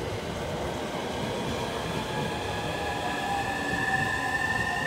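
Electric train whine: several tones together, setting in about a second and a half in and slowly climbing in pitch, over rail-station background noise.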